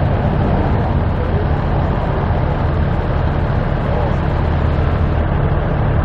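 A steady low engine rumble, even and unbroken, with faint voices in the background.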